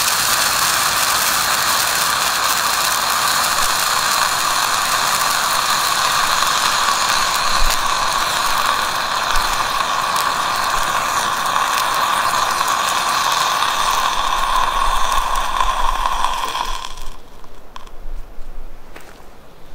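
A red pyrotechnic distress hand flare, nine years past its expiry date, burning with a loud, steady hiss. The hiss cuts off abruptly about seventeen seconds in as the flare burns out, leaving only faint ticks.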